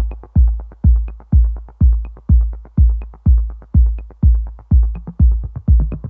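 Background electronic music with a steady kick drum beat, about two beats a second, and a light high tick on every other beat.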